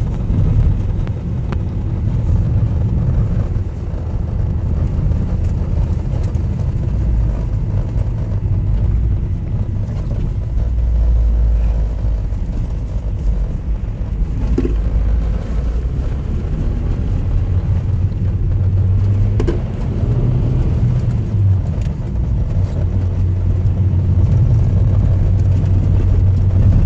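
Mazda 323F being driven, heard from inside the cabin: a steady low drone of engine and road rumble, with the engine's hum growing a little stronger in the second half.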